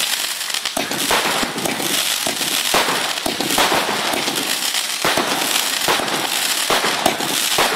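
Aerial fireworks bursting in quick succession: a dense, continuous crackle with several sharp, louder bangs breaking through it.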